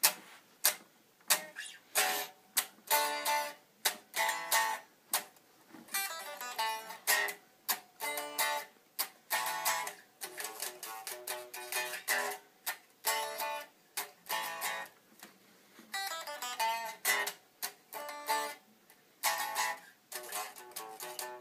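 Guitar playing a rock riff: short, separated chord stabs and quick note runs with brief gaps between them.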